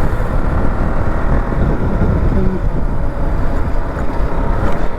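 KTM Duke 200's single-cylinder engine running on its stock exhaust while the bike is ridden, a steady, loud running sound mixed with riding noise. A brief voice is heard about two and a half seconds in.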